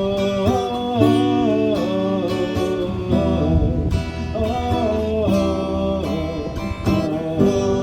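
Instrumental passage of a song between sung verses, carried by guitar over sustained accompaniment.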